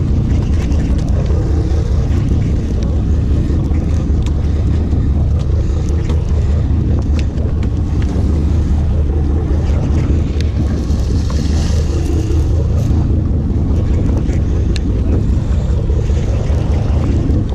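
Sportfishing boat's engine droning steadily underway, with wind buffeting the microphone.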